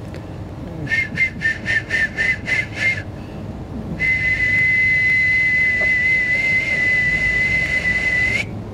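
High-pitched whistle tones: a quick run of about eight short pips, about four a second, then one long steady whistle held for about four seconds that flicks slightly upward as it stops.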